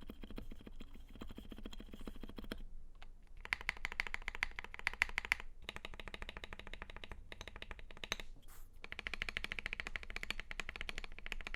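Fast typing on an FL.eSports FL680 mechanical keyboard with stock Gateron CAP yellow linear switches and PBT double-shot keycaps. The keystrokes come in rapid runs of a few seconds, broken by brief pauses, the run a little over a third of the way in being the loudest.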